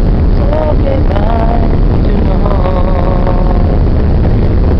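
Steady loud rumble of a ship under way, its engines, churning wake and wind on the open stern deck, with voices singing over it in wavering and held notes.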